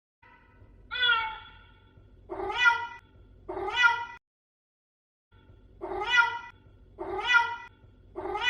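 Domestic cat meowing: six meows in two groups of three, with a pause of about a second between the groups.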